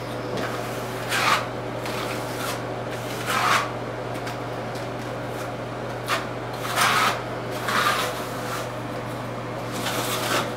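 Brush strokes spreading RedGard liquid waterproofing membrane into a wall-floor corner: about six short scratchy swishes, irregularly spaced a second or two apart, over a steady low hum.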